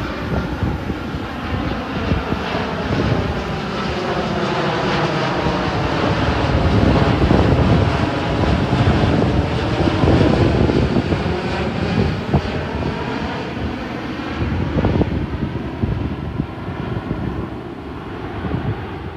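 Jet airliner passing close by on its landing approach: the engine roar swells to its loudest about halfway through, with a sweeping, phasing whoosh as it goes over, then slowly fades.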